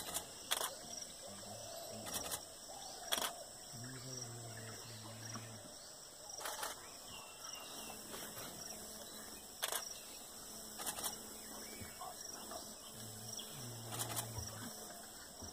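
Camera shutter clicks, single and spread irregularly, over a steady high chirring of insects.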